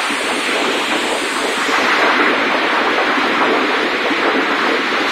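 Heavy rain mixed with hail pelting the ground and nearby surfaces: a loud, steady, dense patter of many small impacts.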